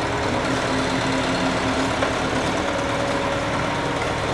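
Wheeled excavator's diesel engine running steadily as it digs and lifts soil, with a light knock about halfway through.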